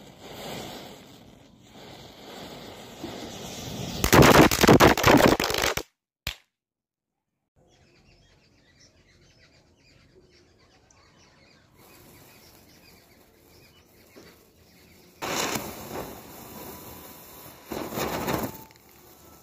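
Diwali firecrackers going off in rapid crackling pops: one long loud spell a few seconds in, then, after a long quiet stretch, two shorter loud bursts near the end as a cracker set off by a burning matchstick fuse sprays sparks.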